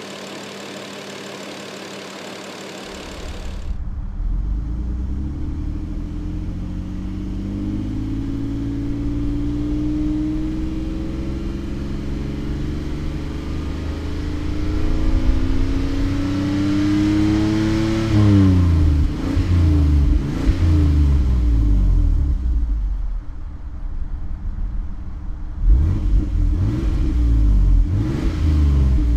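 1998 Toyota Supra Twin Turbo's 3.0-litre twin-turbo inline-six idling, heard first at the open engine bay. It is then heard from the exhaust, where a slow, steady rise in revs over about ten seconds drops off sharply, followed by several quick throttle blips. It settles briefly at idle and is revved again near the end.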